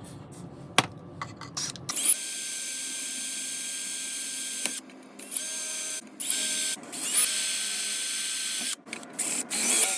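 Electric drill boring a 1/8-inch pilot hole in steel: a few light clicks, then a steady whine for about three seconds, followed by several shorter runs as the trigger is released and squeezed again.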